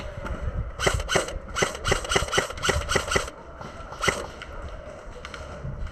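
A quick run of sharp knocks or cracks, about four a second for two and a half seconds, then one more a second later.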